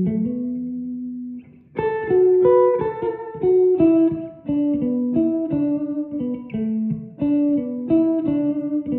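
Gibson Les Paul Custom electric guitar with Tom Holmes humbucking pickups played in single-note melodic phrases, with a short break about one and a half seconds in. It is on the neck pickup alone with the tone control fully open.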